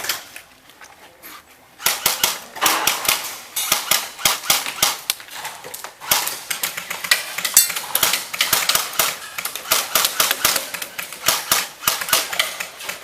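Airsoft guns firing in rapid bursts: a dense run of sharp clacks that starts about two seconds in and keeps going in clusters.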